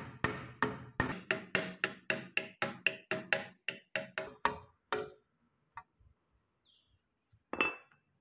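Hammer tapping a steel punch to peen over a rivet pin through a handsaw's handle: quick, even metallic taps about four a second that stop about five seconds in, then one louder strike near the end.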